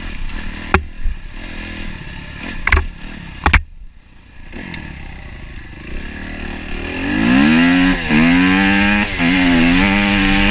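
Dirt bike engine with sharp knocks and clatter from the bike over rough track early on, then the engine revving up hard and loud about two-thirds of the way in as it accelerates, its pitch dipping briefly twice.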